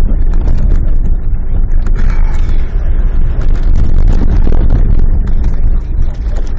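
Land Rover Range Rover driving off-road, heard from inside the cabin: a loud low rumble with frequent knocks and rattles as it jolts over rough ground.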